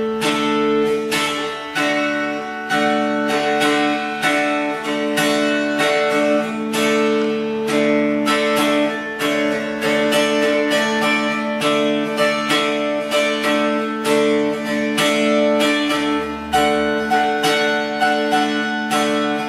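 Guitar played solo: a quick run of plucked notes over two low notes that keep ringing steadily underneath.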